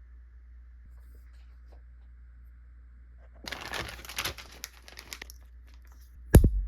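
Packaging crinkling and tearing for about a second as a new iPad case is unboxed, followed near the end by a single loud thump.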